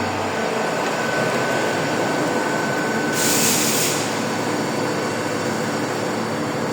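CNC machine running, with a steady mechanical noise. A thin whine runs for a couple of seconds, and a brief burst of hiss comes about three seconds in.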